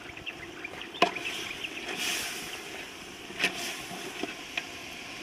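Duck curry cooking in an aluminium pot over a wood fire: a low steady hiss with a few sharp clicks, the loudest about a second in and another about three and a half seconds in, as a metal slotted ladle stirs the pot.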